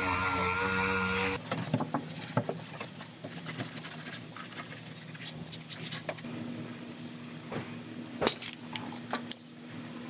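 Air-powered orbital sander running with a steady whine, shut off abruptly about a second and a half in. Then light clicks, taps and rubbing of hand work on the car body.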